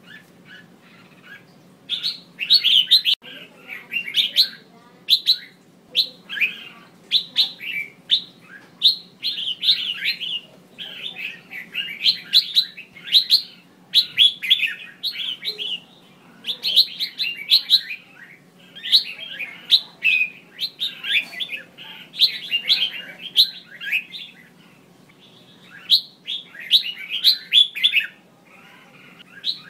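Female red-whiskered bulbul calling: short, quick bursts of chirpy notes, repeated phrase after phrase with brief pauses. These are the female calls used to stir male bulbuls into song.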